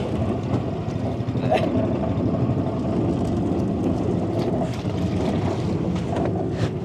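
Boat's outboard motor running steadily, with a few faint voices over it.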